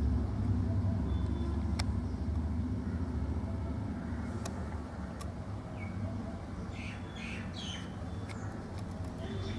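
Newborn kittens giving short high-pitched squeaky mews, several in a cluster about seven seconds in, over a steady low rumble and a few faint clicks.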